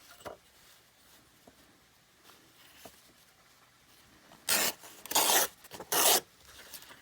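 A calendar page being torn by hand: three short, loud rips starting about four and a half seconds in, after some faint paper handling.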